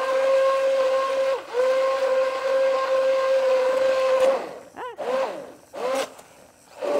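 Hand-held immersion blender pureeing thick butternut squash soup in a pot: a steady motor whine that dips briefly about a second and a half in, runs on, and stops after about four seconds, followed by two short pulses whose pitch swoops up and down.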